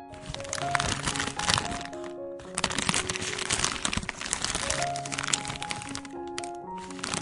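Plastic piping bag crinkling and crackling as it is squeezed to pipe icing, with two short pauses, about two and a half seconds in and about six seconds in. Soft piano music plays underneath.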